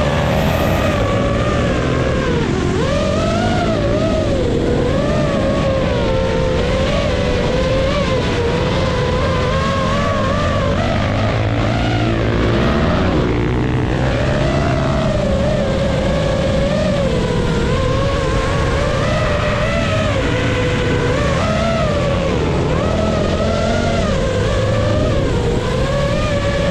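FPV drone's motors and propellers whining steadily, the pitch wavering up and down with the throttle, over a low engine rumble.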